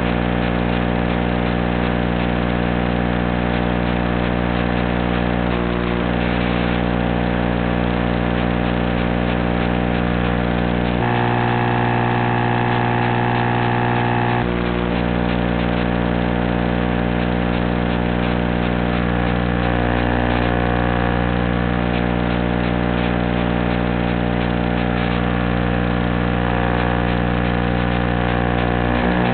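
Steady electronic buzz with several fixed tones in the audio of an analog FPV video feed, unchanging except for a brief shift in its tone partway through.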